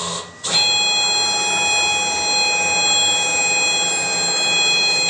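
A CNC router's stepper motors whine at one steady pitch as the gantry is jogged across the table, starting sharply about half a second in and cutting off just as sharply.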